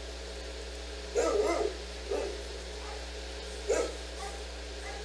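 A dog barking: a quick run of barks just over a second in, then single barks about a second later and near four seconds in, over a steady low hum.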